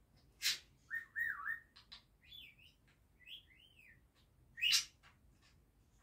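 Budgerigar chattering: a run of whistled notes that glide up and down, mixed with short sharp chirps. The loudest chirps come about half a second in and again about four-fifths of the way through.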